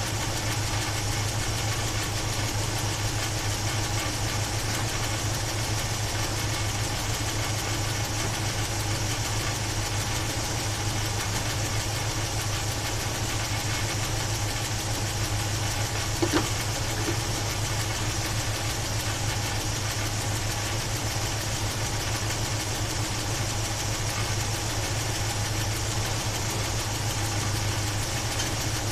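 Carbureted Chevy 350 small-block V8 idling steadily, with a short sharp click about sixteen seconds in. The engine has a top-end noise that the owner fears is a bad valve, though he hopes it is only old gas.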